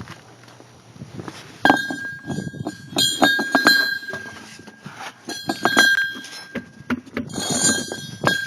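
Repeated metallic knocks and clinks, each leaving a bright ringing tone, coming in several clusters from about two seconds in.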